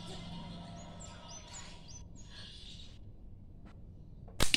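Birds chirping in short rising calls, then near the end a single sharp snap as a PFS slingshot's rubber band is released from full draw and fires a shot.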